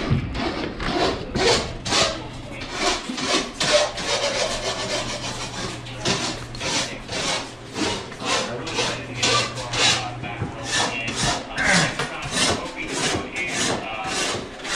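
Repeated rasping, rubbing strokes, roughly two a second, with a steady low hum through the middle.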